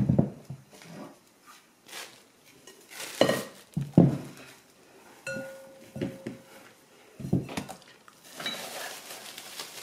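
Glass mixing bowls set down and shifted on a silicone baking mat, giving several dull knocks. Near the end comes a stretch of crinkling plastic cling wrap as it is pulled over the bowls.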